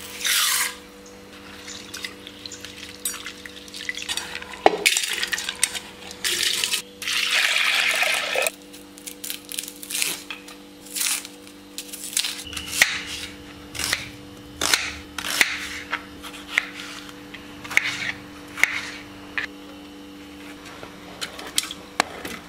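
Kitchen food-prep sounds: dry toor dal pouring into a steel bowl at the very start, a longer spell of pouring and sloshing a little later, then a run of sharp knife taps and clicks as an onion is peeled and cut. A steady low hum sits underneath.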